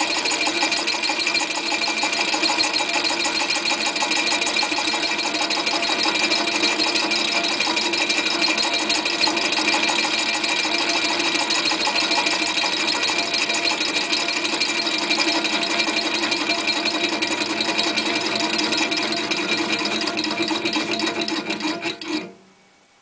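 Four-cylinder swash-plate Stirling engine running, a steady fast rasping mechanical clatter that cuts off suddenly near the end.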